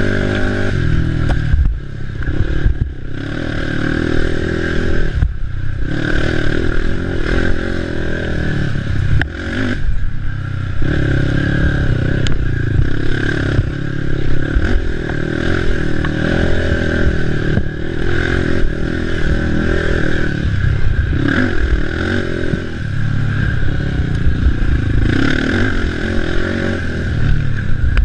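Racing ATV engine revving hard through rough off-road terrain, its pitch climbing and falling as the throttle is worked. It drops off briefly about seven times, near 2, 3, 5½, 10, 17½, 21 and 28 seconds in.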